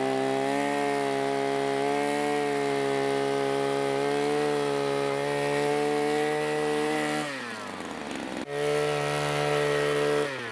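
Small petrol engine running at steady high revs. Its pitch drops as it slows about seven seconds in, then it runs steady again and slows once more near the end.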